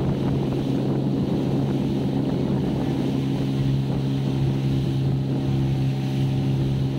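Small motorboat's engine running steadily at cruising speed, a constant low drone.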